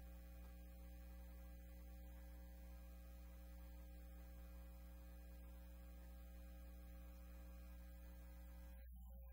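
Near silence apart from a steady low electrical hum.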